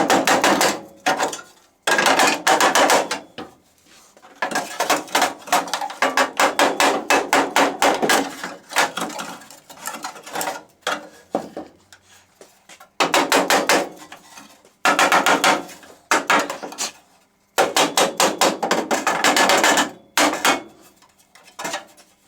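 Hammer tapping sheet steel in quick runs of about four blows a second, stopping and starting several times, as a new steel battery tray is knocked into place in a car's rear quarter panel.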